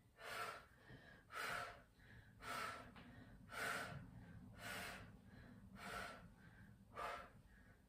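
A woman breathing hard from exertion, one short forceful breath about every second, seven in all, in time with her leg switches during a Pilates single-leg stretch.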